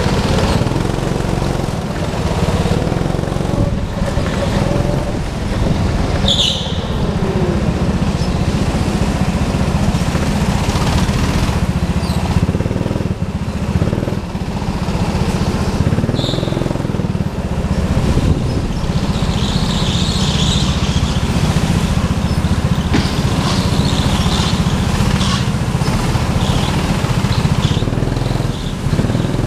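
Rental go-kart engine running steadily under load, heard from on board the kart, with a couple of brief high squeals, one about six seconds in and another near the middle.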